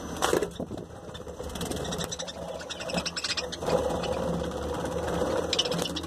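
Budgerigars chattering in a cage, with bursts of fast, buzzy clicking warble over a steady low hum.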